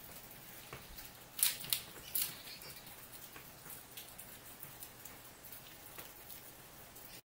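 A red squirrel cracking and nibbling a seed: a scatter of small sharp clicks over a faint hiss, with three louder cracks close together about a second and a half in.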